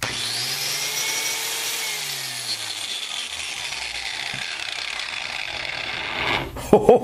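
The universal motor of a DeWalt 12-amp angle grinder is switched on at full voltage and starts hard, drawing a 37-amp inrush and nearly twisting out of the hand. Its whine rises as it spins up over about a second, then slowly sinks.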